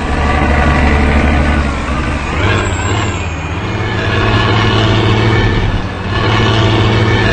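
Intercity bus's diesel engine running loud through a deep, rumbling 'snoring' exhaust. The revs rise about two seconds in, dip briefly, then rise again near the end.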